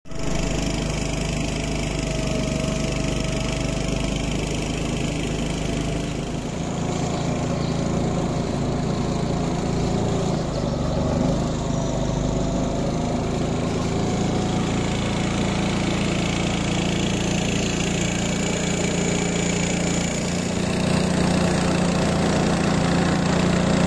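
Small motorboat engine running steadily under way on a river, with a slight rise in loudness near the end as another motorboat passes close.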